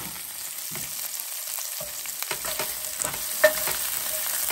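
Chopped red bell pepper and spring onion sizzling in garlic oil in a stainless steel frying pan, stirred with a wooden spatula that scrapes across the pan from about halfway through, with one sharp knock of the spatula on the pan near the end.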